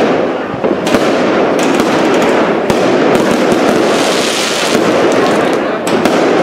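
Aerial fireworks bursting overhead in quick succession: a continuous run of loud bangs and pops, with a denser spell of crackling about four seconds in.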